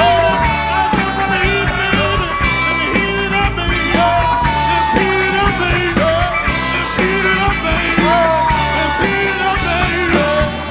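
Live band playing a song with a steady beat, a held melodic phrase repeating about every two seconds.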